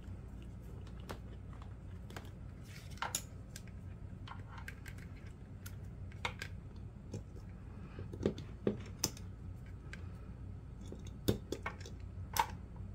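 Scattered small clicks and taps of alligator clips, test-lead plugs and a plastic watt meter being handled and clipped onto battery terminals, over a low steady hum.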